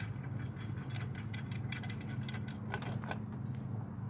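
Small metal clicks and light rattling of bolt, washer and bracket hardware being handled and screwed in by hand on a tow-hitch license plate mount, over a steady low hum.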